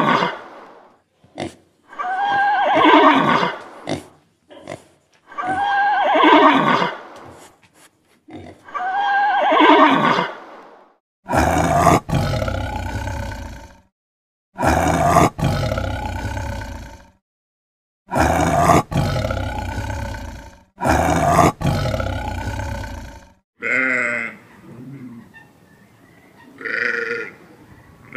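A run of wild animal calls. First come three zebra calls about three seconds apart. After that, four longer, deeper leopard roars follow each other a few seconds apart, and near the end come a few fainter, shorter calls.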